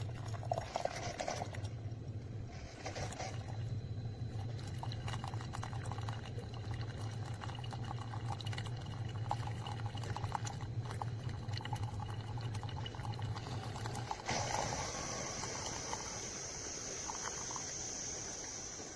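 Tastyle mini single-serve coffee maker brewing: a steady low pump hum with liquid trickling and pouring into the cup. The hum stops about 14 seconds in, leaving a steady high hiss.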